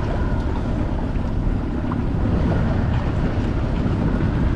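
A boat's outboard motor runs at low speed as the boat moves through the water, a steady rumble with wind buffeting the microphone.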